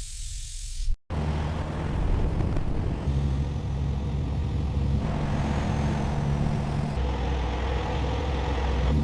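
Semi truck's diesel engine running with a steady low drone, which starts after a short break about a second in.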